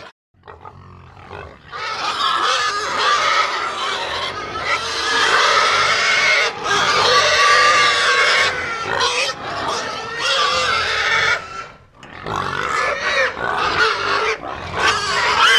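Layered cartoon animal sound effects: a dense jumble of animal calls, with pig grunts and oinks prominent. The calls drop out briefly near the start and again about twelve seconds in.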